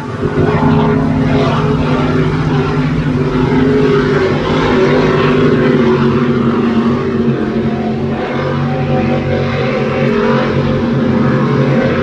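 Offshore racing powerboat engines running at speed: a loud, steady engine drone that swells about half a second in.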